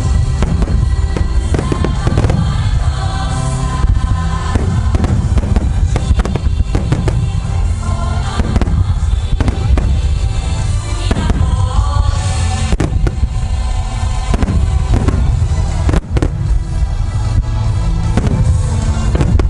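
Aerial firework shells bursting in quick succession: a dense run of booms and cracks over a continuous rumble, with music playing underneath.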